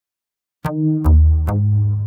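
Short electronic logo jingle: after a silent start, three sharp pitched hits about half a second apart, with a deep bass note holding under the last two and slowly fading.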